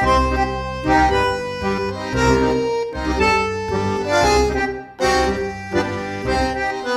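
Background music: an instrumental tune with a steady bass beat and a short break about five seconds in.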